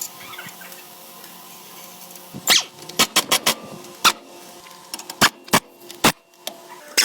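A series of sharp metal clicks and knocks from hand tools and parts being handled in axle repair work, starting about two and a half seconds in, over a faint steady hum.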